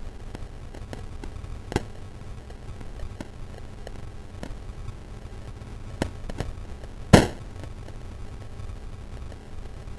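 Crackling fireplace fire, digitally degraded by a bitcrusher effect: scattered sharp pops, the loudest about seven seconds in, over a steady low grainy hiss.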